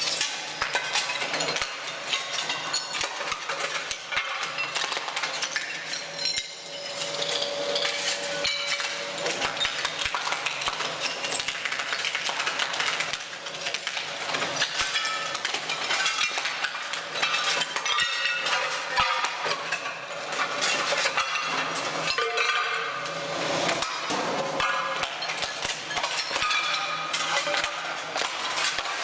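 ROLL-STRIPPER ride-on floor stripper's blade breaking ceramic floor tiles off the subfloor: a dense, continuous clatter of cracking and clinking tile.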